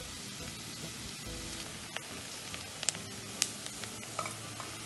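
Diced onion sizzling in melted butter in a stainless steel pot, stirred with a silicone spatula, with a few sharp clicks of the spatula against the pot.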